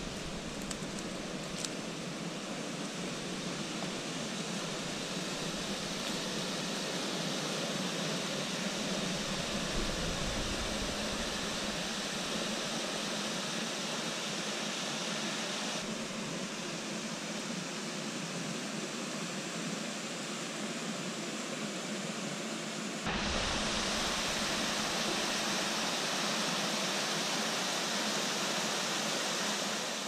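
Steady rush of water from a small waterfall spilling into a shallow pool, louder from about three quarters of the way through.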